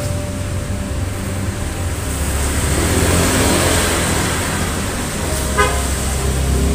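Road traffic close by: a car passing, its noise swelling to a peak around the middle over a steady low rumble, and a short car horn toot near the end.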